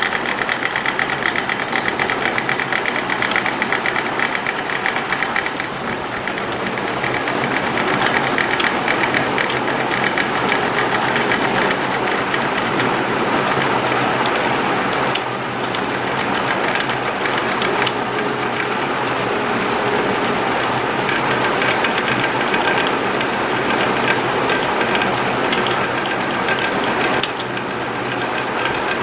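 Homemade tabletop CNC pen plotter running under computer control. Its motors drive the pencil carriage along the axes with a continuous buzzing chatter of fine, rapid steps, which shifts in pitch and loudness each time the moves change.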